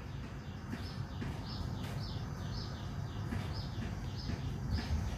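A bird calling over and over, a short chirp that falls in pitch, two or three times a second, over a steady low rumble.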